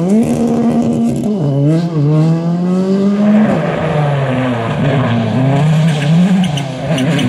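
Ford Fiesta rally car engines at full throttle. The pitch climbs through each gear and drops at each shift, switching to a second car about three and a half seconds in.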